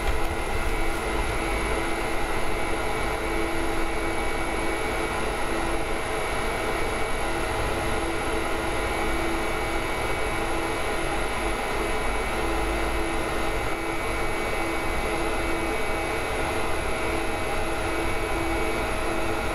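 Apple Xserve G5 server's cooling fans running steadily at idle, a constant rush of air with several steady whining tones on top.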